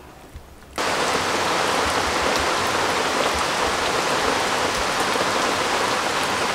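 Steady rain falling on an umbrella and leaves, cutting in suddenly about a second in.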